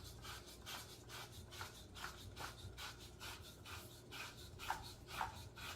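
Faint rubbing and light clicks of plastic parts being handled, about two or three a second: a pressure washer's spray gun fitting being worked while its rubber washer is seated.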